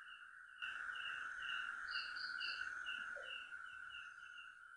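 Night insect chorus: a steady high-pitched trill with a regular pulsing chirp above it, about two pulses a second, and a short run of three higher chirps near the middle. A soft hiss of background noise rises about half a second in.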